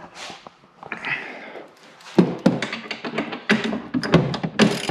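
Hand ratchet wrench tightening bolts on an ATV's rear bumper and hitch: from about two seconds in, a run of knocks and clicks a few tenths of a second apart.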